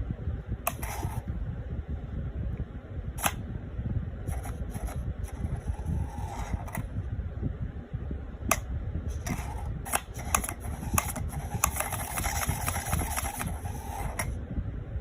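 Switches on a 3D-printed switch box being flipped: scattered sharp clicks and short rattly clatters, busiest about four to seven seconds in and again near the end, over a steady low rumble.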